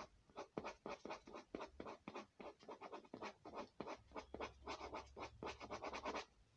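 Pink marker scribbling back and forth on paper in quick scratchy strokes, about five a second, colouring in a drawing. The scribbling stops near the end.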